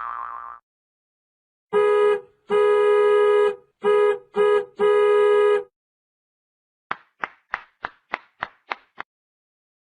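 Comedy sound effects: an organ-like keyboard tone held on one pitch and sounded five times with short breaks, uneven in length, then a quick run of about nine short notes that each die away fast.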